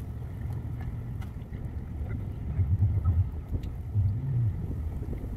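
Wind buffeting the microphone, making an uneven low rumble.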